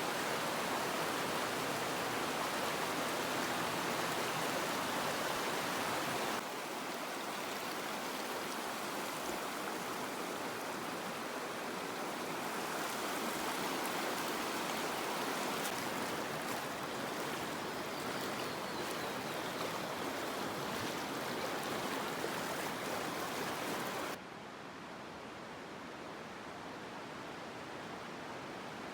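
Rushing river water of the Virgin River running high and rough through the Narrows, a steady dense roar. It changes abruptly twice; after the second change, near the end, it is quieter and duller.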